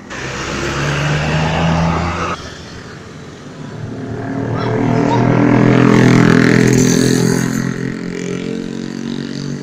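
Bus going by close: a loud rushing blast for about two seconds that cuts off abruptly, then its engine running steadily, growing louder to a peak about halfway through and fading a little.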